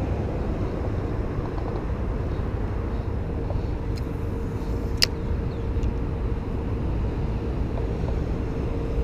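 Steady rumble of highway traffic, with a single sharp click about five seconds in.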